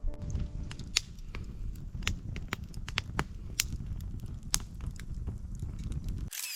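Laurel firewood burning in a campfire, with irregular sharp crackles and pops over a steady low rumble; the sound cuts off abruptly near the end.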